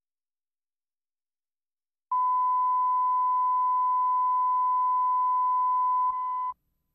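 1 kHz reference tone of a bars-and-tone video leader: one steady, pure beep that starts about two seconds in. It drops slightly in level near the end and then cuts off abruptly.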